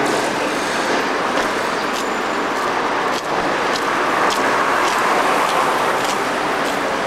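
Street traffic noise around a double-deck electric tram running along the street: a steady wash of rumble and hiss, with scattered sharp clicks.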